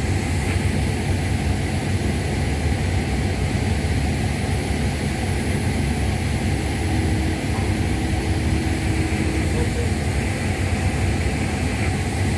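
Steady low rumble with wind noise buffeting the microphone on an open ship's deck, and a faint steady hum midway through.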